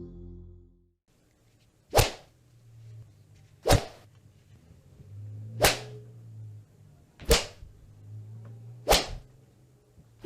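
Punch and slap sound effects: five sharp, separate hits about every second and a half to two seconds, each with a short tail.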